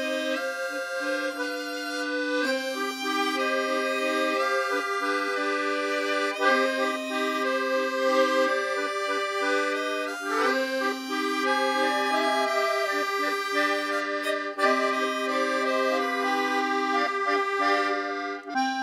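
Background music: an accordion tune, a melody moving over held chord notes.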